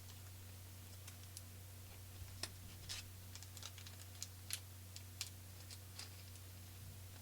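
Light, irregular clicks and ticks of small screws and a screwdriver being handled against model-kit parts, mostly in the middle few seconds, over a steady low hum.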